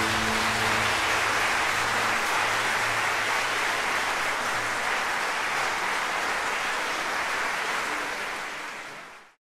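Audience applauding after the orchestra's final chord, which dies away in the first second; the applause holds steady, then fades out near the end.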